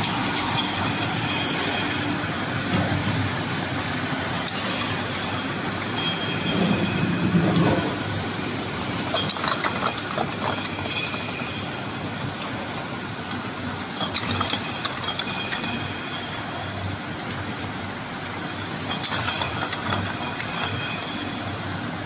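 Automatic glass bottle brushing and washing machine running steadily, with irregular clattering at times.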